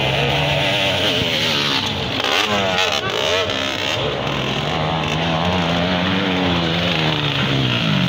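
Dirt bike engines revving as the bikes climb a rocky hill track. The engine note wavers up and down with the throttle, and one bike draws close near the end.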